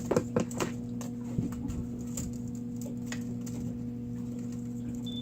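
Light clicks and ticks of stiff single-strand Malin leader wire and a hook being handled and twisted by hand: several in the first half second, one more about a second and a half in, then only faint occasional ticks. A steady low hum runs underneath.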